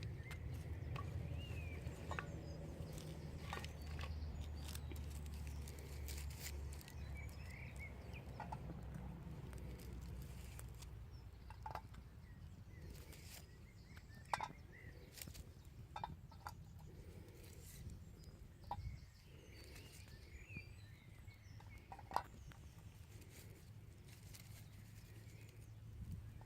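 Faint outdoor ambience: a low wind-like rumble, strongest over the first several seconds, with thin bird calls and scattered light clicks and knocks.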